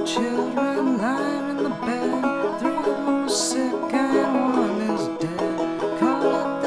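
Instrumental break of an old-time bluegrass-style tune, led by a plucked banjo with notes that bend in pitch. There are a couple of short cymbal-like splashes.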